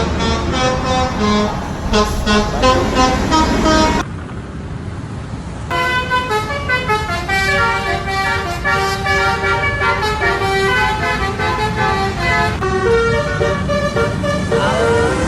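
Indonesian bus 'telolet' horns (Basuri multi-tone air horns) playing quick melodic sequences of notes. About four seconds in they stop for a moment, leaving only road and engine noise, then a horn melody starts again.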